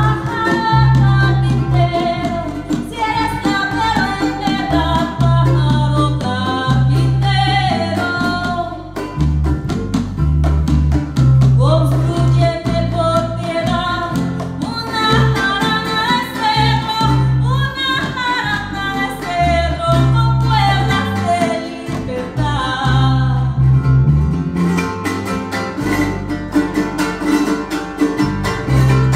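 Live son jarocho music: a woman singing over an electric bass and strummed string instruments. The singing pauses briefly twice while the strumming and bass carry on.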